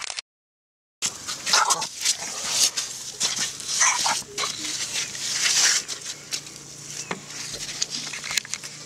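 Elephant calf up against the microphone, snuffling and blowing through its trunk with a few short squeaks, after a dead-silent gap of under a second.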